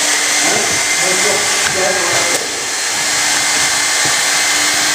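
Steady, loud rushing noise of blowing air, like a fan or blower, with a faint steady hum.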